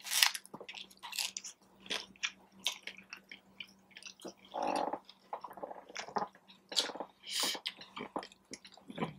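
Close-up eating: a person biting and chewing a crunchy taco shell, with irregular sharp crunches throughout and a short hum about halfway through.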